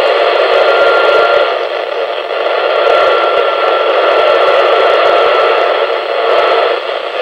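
FM receiver hiss from a Yaesu all-mode transceiver tuned to the ARISSat-1 satellite's 145.95 MHz downlink: a steady rush of static with a faint steady tone under it, the signal fading as the tumbling satellite turns. The hiss drops away near the end.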